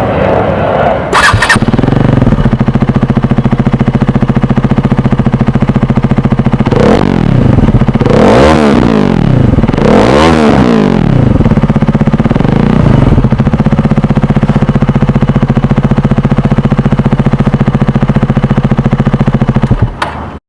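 KTM Duke 250's single-cylinder engine through an aftermarket SC Project-style slip-on exhaust, running loud at idle and blipped in a few quick revs near the middle before settling back to idle.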